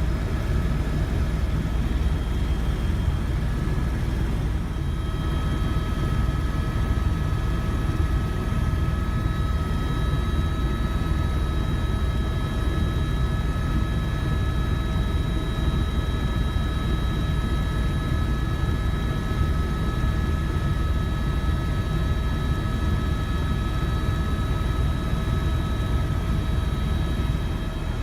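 Tour helicopter in flight: a steady low rumble of rotor and engine with a constant high whine over it.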